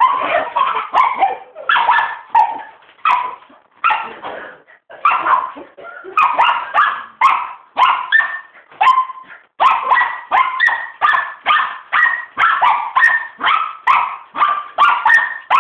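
A dog barking over and over in short, sharp barks. The barks come irregularly with brief pauses at first, then settle into a steady run of about two to three barks a second from about ten seconds in.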